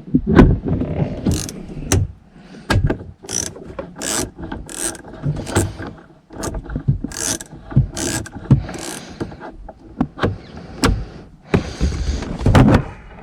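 Ratchet wrench with a 10mm socket on an extension clicking in short, irregular strokes as it loosens the tail light's top mounting bolt.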